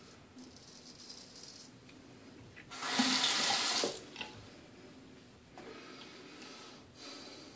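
Bathroom sink tap running for about a second, the loudest sound, as the straight razor is rinsed. Before it, faint scraping of the razor against lathered stubble.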